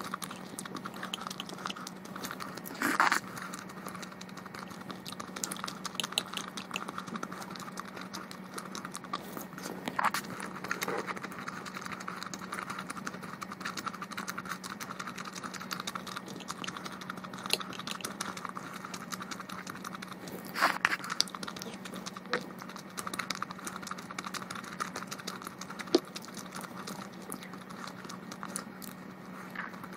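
Close-miked eating sounds: wet, clicky chewing of chewy rice cakes and fried snacks. A few louder knocks come through, roughly three, ten, twenty-one and twenty-six seconds in.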